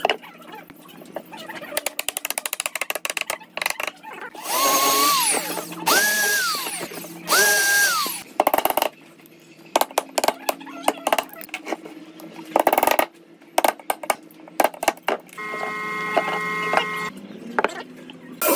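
A handheld power tool is run in three short bursts, each whine rising to a steady pitch and winding down again. After that a wooden mallet strikes a chisel cutting into pine, giving a run of sharp knocks.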